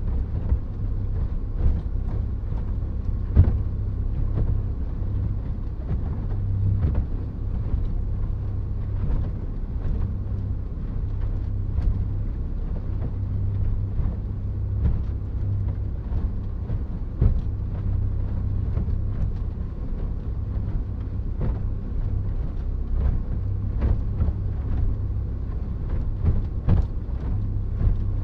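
Motor yacht under way heard from inside its cabin: a steady low engine drone, with scattered sharp knocks, the loudest about three and a half seconds in.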